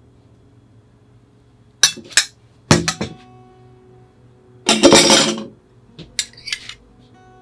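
Tableware clinking: a few sharp clinks that ring briefly, a longer rough rattling burst about five seconds in, then three lighter clinks.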